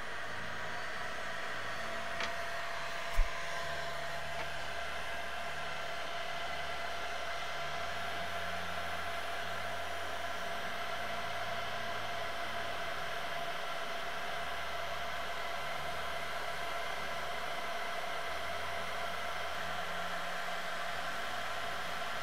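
Steady whir of workshop equipment running in the background, an even noise with a few faint held tones. There is a single short low knock about three seconds in.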